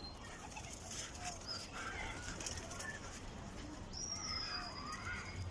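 Domestic pigeons cooing, mixed with short chirps of other birds. Near the end a thin, high whistled note holds for about a second and a half.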